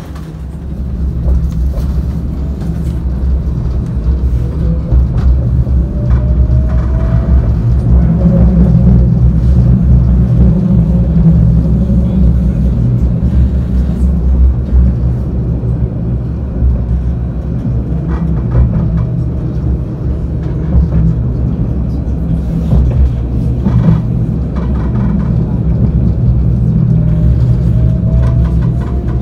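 Alstom Citadis 402 tram heard from inside the car as it pulls away and runs along the track: a steady low rumble, building about a second in. A rising whine from the traction drive comes a few seconds in as it gathers speed, and again near the end.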